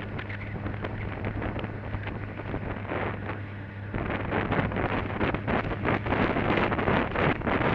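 Motorcycle engine running at a steady pitch while riding, heard under heavy wind buffeting on the microphone. The wind noise grows louder about halfway through.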